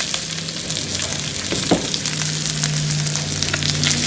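Seasoned chicken sizzling in hot oil in a frying pan, with a few light clicks of a utensil against the pan.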